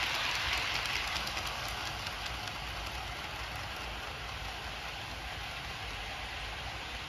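HO-scale model freight train running on the track: a steady rolling hiss of the wagon wheels with light clicks over the rail joints, fading slightly as the train moves away.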